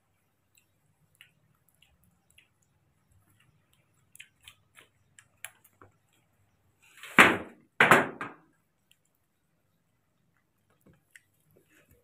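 Faint, scattered clicking of baby monkeys sucking at small milk bottles, broken a little after the middle by two loud rustling thumps about a second apart.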